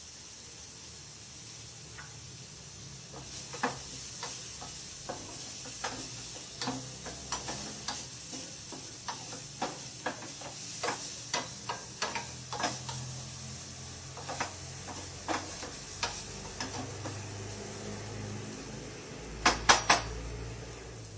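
A spatula stirs and scrapes chopped onions in a small stainless steel pan, knocking against the metal many times, over a faint sizzle from onions cooking dry in the pan without oil. Near the end come three loud taps in quick succession, the spatula striking the pan.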